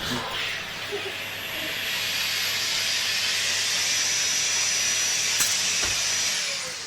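Vacuum cleaner motor running with a steady airy rush and a high whine, then switched off near the end, its pitch falling as the motor spins down.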